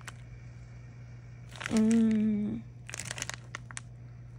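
Thin plastic zip-top bag holding a wax melt bar crinkling in the hands: a few crackles at the start and a cluster of them past the middle. In between, a woman lets out a drawn-out 'mmm' of about a second as she smells the wax, which is the loudest sound.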